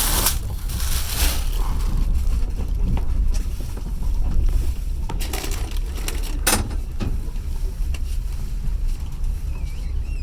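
Passenger train carriage running along the track, a steady low rumble with a few sharp clacks of the wheels over rail joints.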